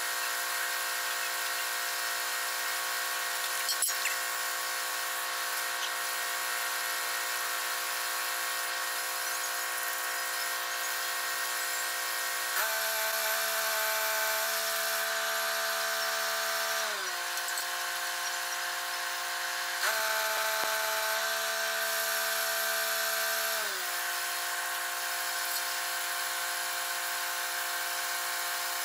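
A machine running steadily with a drone of several steady tones. About halfway through it steps up in pitch, glides back down a few seconds later, and does the same once more.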